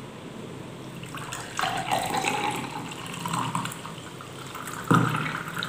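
Blended amla and lemon juice pouring from a plastic mixer jar through a plastic strainer into a glass, a steady splashing trickle, with a sudden louder knock near the end.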